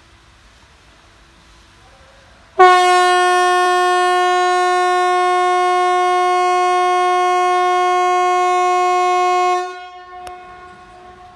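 Hesa Fredrik outdoor warning siren sounding the VMA (Important Message to the Public) signal in a test. It gives one loud, steady horn-like tone about seven seconds long that starts abruptly a couple of seconds in and stops sharply. A fainter trace of the tone lingers after it stops.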